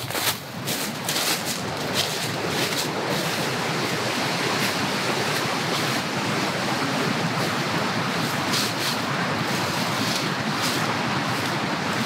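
A steady rushing hiss, like wind through the forest, with a few short crisp crunches of dry leaves and twigs as someone moves through the leaf litter.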